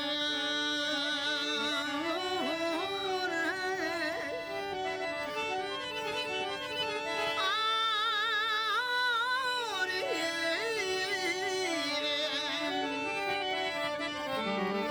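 Rajasthani folk song played live: a voice sings a slow melody with a wavering vibrato, including a long held note around the middle, over a steady drone from a harmonium.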